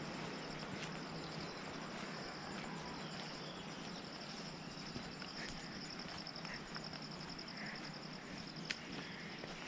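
Insects chirring in a steady, high-pitched, finely pulsing trill over a constant hiss of outdoor ambience, with a few sharp ticks near the end.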